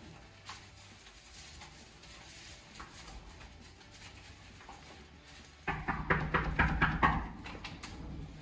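A rapid run of about eight knocks on a wooden apartment door, about six a second, coming suddenly over halfway through after faint footfalls on carpet.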